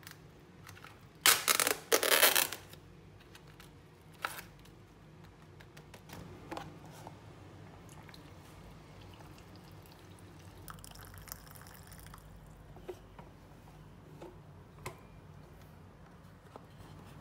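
The paper-and-foil lid of an instant cup noodle cup is peeled back with two loud ripping sounds in quick succession. Water is then poured into the cup, with small taps and clicks from handling.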